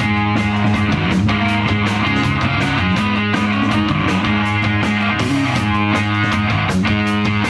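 Live rock band playing loud: electric guitar and electric bass over a drum kit keeping a steady beat, with no singing.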